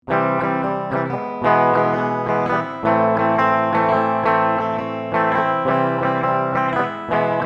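Ukulele playing a tune in plucked and strummed chords; it starts suddenly.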